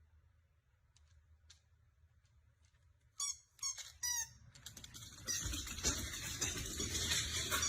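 Three quick, high-pitched squeaks, each falling in pitch, about three seconds in, likely from a small animal. After them comes a steady rushing, rustling noise that grows louder toward the end.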